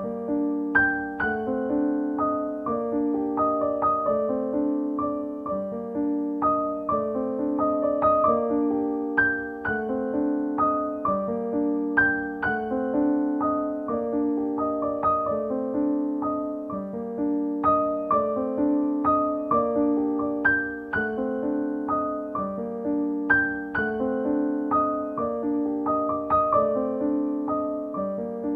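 Background piano music: a steady flow of struck notes over held lower chords.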